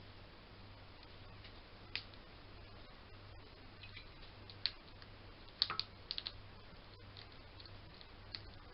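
A few irregular sharp clicks and taps, a cluster of them a little past the middle, over a faint steady low hum.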